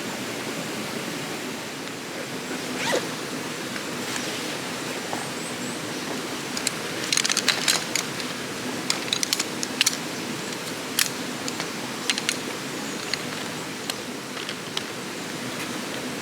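Steady rush of flowing stream water, with a run of sharp clicks and taps in the middle.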